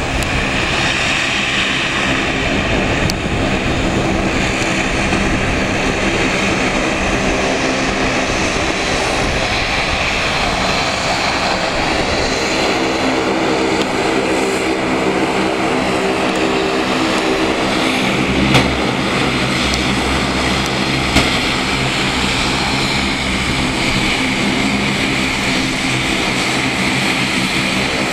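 Bombardier Dash 8 Q400's twin Pratt & Whitney PW150A turboprop engines running at taxi power, a steady propeller drone with engine whine. The propeller hum grows stronger about halfway through, and two brief knocks come about two-thirds of the way in.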